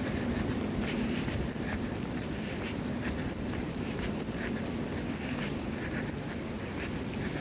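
Steady background hum of a large hall, with a fast, irregular run of faint high clicks and ticks over it.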